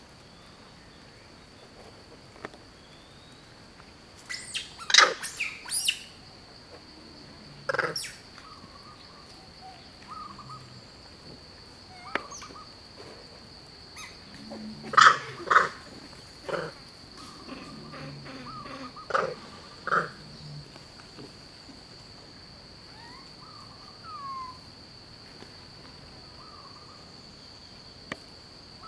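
Outdoor tropical ambience: a steady high-pitched insect drone, with short bird chirps and several louder, sharp calls breaking in, the loudest about 5 and 15 seconds in.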